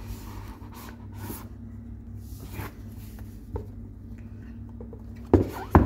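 Cardboard retail box for a phone charger being handled and turned over in the hands, with faint rubbing and rustling, then two sharp knocks about half a second apart near the end.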